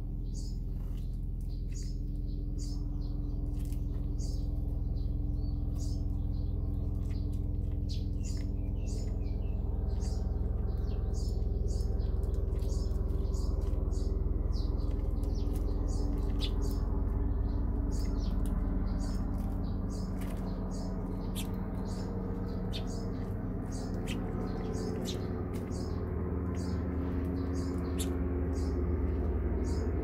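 Eurasian tree sparrows chirping, many short high chirps in quick succession, over a steady low hum.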